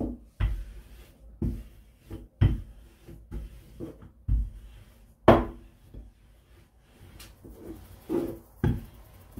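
Rolling pin working dough out thin on a floured surface: a series of irregular knocks and thumps, the loudest about five seconds in.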